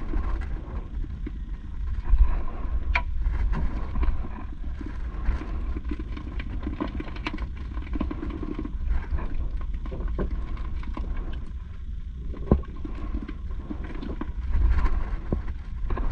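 Steady wind noise on the microphone and water lapping at a small wooden outrigger boat, with scattered light taps and knocks as sabiki line and freshly caught fish are handled over a plastic bucket.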